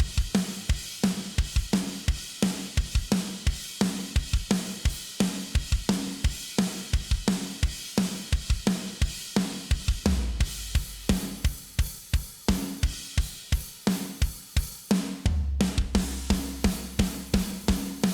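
Sampled rock drum kit from the GetGood Drums PV Heavy Rock library playing a fast, driving beat on its own: kick, snare, hi-hat and crash cymbals. The beat cuts out briefly about 15 seconds in and then comes straight back in.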